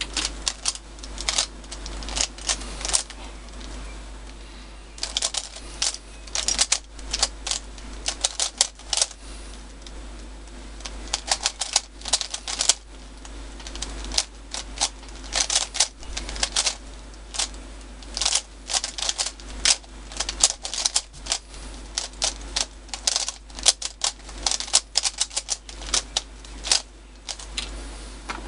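A plastic MoYu WeiLong 3x3 speedcube being turned by hand in quick bursts of clacking layer turns, with short pauses between bursts, as it is scrambled for the next timed solve.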